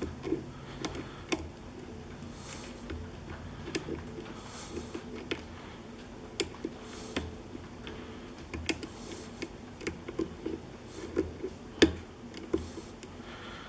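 Lock picking: a short hook pick working the pins of a five-pin tumbler lock held under tension in a vise, giving irregular small metallic clicks and ticks as pins are lifted and set. One click near the end is noticeably louder than the rest.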